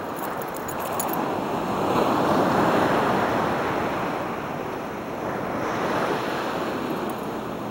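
Ocean surf washing onto the beach, a steady rushing that swells to its loudest about two to three seconds in and rises again near the end.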